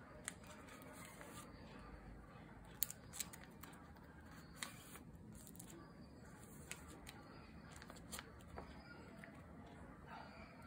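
Photocards and plastic sleeves being handled: scattered soft clicks and light rustling, with a few sharper clicks around three seconds in.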